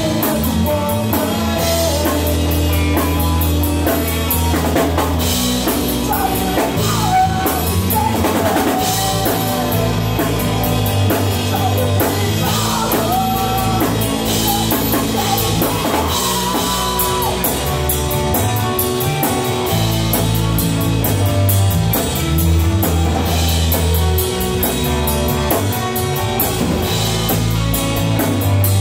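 Rock band playing live: a drum kit with cymbal crashes, electric guitars and a heavy low bass line, loud and without a break.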